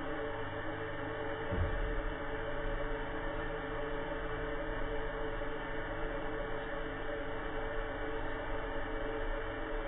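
A steady hum of several sustained tones over a hiss, with a low thump about one and a half seconds in.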